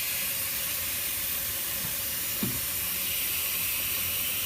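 A steady hiss, like air blowing, with one soft knock about two and a half seconds in.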